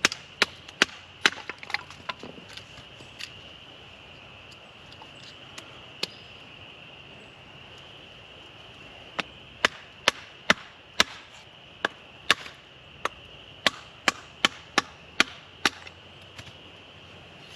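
Knife blade chopping into wood in sharp knocks: a quick handful at the start, a few scattered ones, then a run of about a dozen more in the second half. A steady high insect drone runs underneath.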